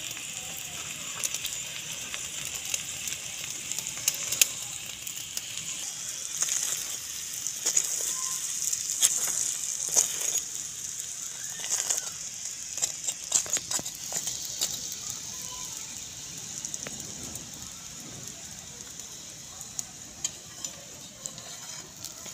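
Aloo paratha frying on a black iron pan: a steady sizzle, loudest in the middle. It comes with scattered sharp clicks and scrapes as a steel spatula presses the bread and turns it.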